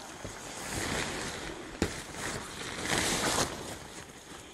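Rain-fly tarp fabric rustling and swishing as it is slid out of its sleeve and spread along the ridgeline by hand, with one sharp click just before the middle.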